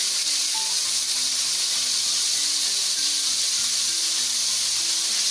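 Coated chicken wings deep-frying in hot oil in a wok, a steady sizzle. This is the second fry of the double-fry, after the wings have cooled.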